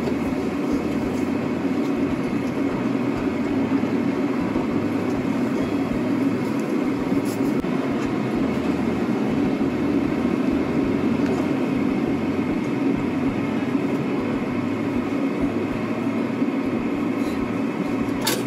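Kei truck heard from inside the cab while driving: a steady drone of engine and road noise.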